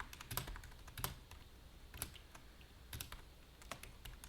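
Typing on a cheap metal-framed mechanical keyboard: irregular, spaced-out keystroke clicks with short pauses between them.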